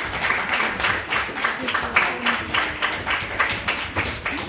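A roomful of people clapping: dense, irregular applause, with faint voices underneath.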